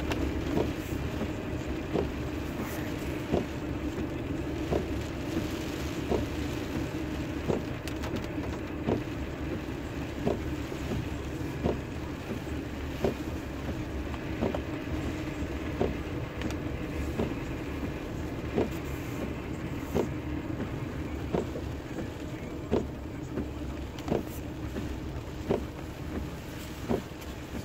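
Car driving slowly, heard from inside the cabin: a steady low rumble of engine and tyres. Over it comes a short knock about every second and a half as the windshield wipers sweep.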